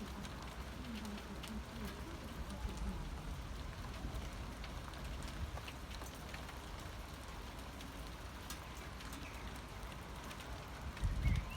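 Faint, steady outdoor hiss with scattered light ticks, and low rumbling on the microphone starting near the end.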